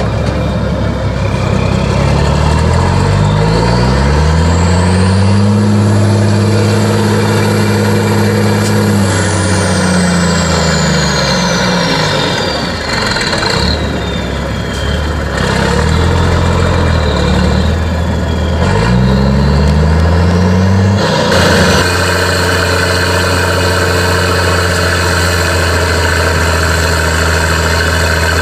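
Diesel engine of an off-road trial truck, stuck in deep mud, revving up, held at high revs for several seconds, then dropping back, with a thin high whine rising and falling along with it. It revs up again after a lull, and about two-thirds of the way in the sound turns suddenly fuller and stays steady and hard-working.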